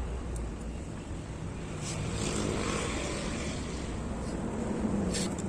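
Motor vehicle traffic passing by: a low rumble that swells about two seconds in and again near the end.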